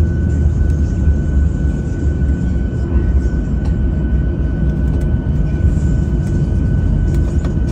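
Inside the cabin of a Boeing 737-600 taxiing after landing: its CFM56-7B jet engines at idle give a steady low rumble with a thin, steady high whine above it.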